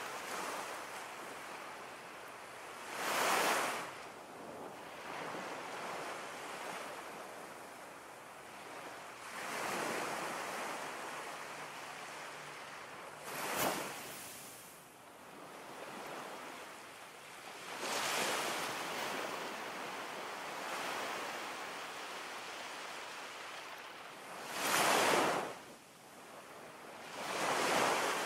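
Ocean surf: a steady wash of water noise swelling into louder waves every few seconds at uneven intervals, with one brief sharp splash about halfway through.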